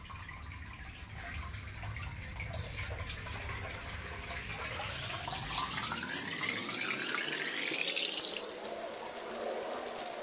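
Water rushing through a sewer drain just after the blockage is cleared, growing steadily louder, with a hollow whooshing tone that sweeps up in pitch from about halfway through.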